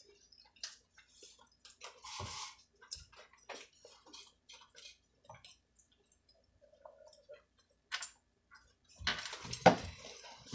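Eating sounds at a table: scattered soft clicks and taps, a brief rustle about two seconds in, and a louder burst of crackling with one sharp crack near the end.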